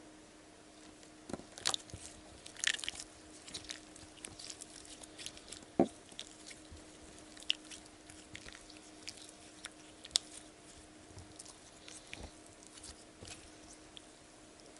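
Sticky, not fully thickened slime being stretched and kneaded by hand: irregular small wet clicks and crackles, with one louder snap about six seconds in.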